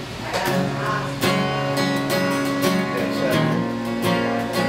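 Acoustic guitar strumming chords, each stroke left to ring.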